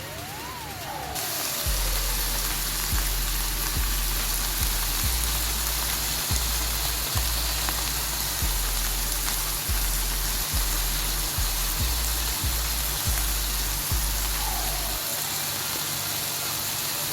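Chicken breast pieces frying in coconut oil in a pan, a steady sizzle that grows louder about a second in, with background music carrying a bass line.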